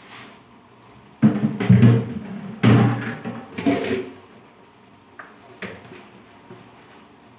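Dishes knocking and clattering against a stainless-steel sink during washing up: a few heavy thuds in the first half, then a few light clinks.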